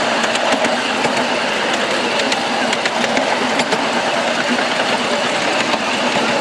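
Ride-on miniature railway train running along its track, heard from on board: a steady mechanical running noise with scattered sharp clicks and rattles from the wheels and track.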